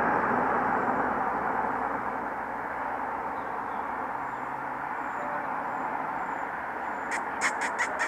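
Steady outdoor rushing background noise that eases over the first two seconds, with a quick run of five or six short, sharp bird calls about seven seconds in.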